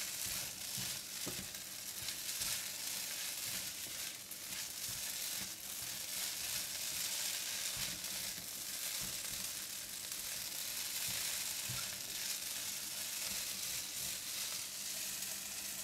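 Rice pin noodles (lou shu fun) sizzling in garlic oil in a non-stick pan, stirred with a silicone spatula. It is a steady frying hiss with a few soft knocks of the spatula now and then.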